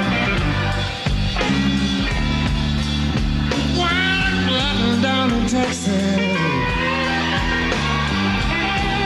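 Blues-rock music: electric guitar playing bent notes over bass and drums.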